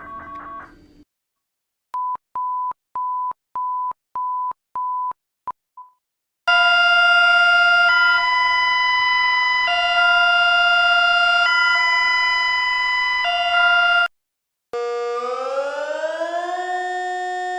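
Emergency alert tones: seven short, steady electronic beeps about two a second, then a loud multi-tone alert that alternates between two chords every second and a half or so, then a siren wail that rises and falls in pitch.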